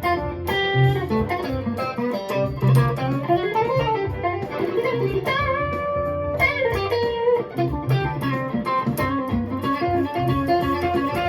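Unaccompanied electric guitar played chord-melody style: picked chords mixed with melody notes, with a chord held for about a second about halfway through.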